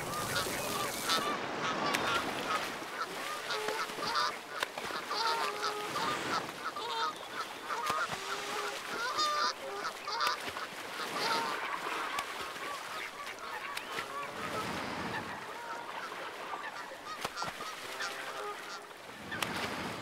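A flock of Canada geese honking over and over, many short overlapping calls, with water splashing as birds bathe and beat their wings on the surface.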